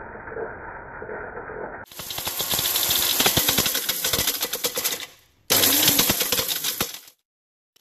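Personal blender grinding a plastic credit card in water: the motor runs while card pieces clatter rapidly and sharply against the plastic cup. For the first two seconds the sound is lower and muffled. It breaks off twice, and falls silent near the end.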